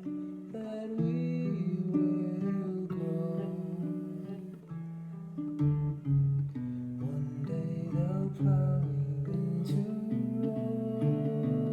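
Acoustic guitar playing an instrumental passage of a song, with notes changing throughout.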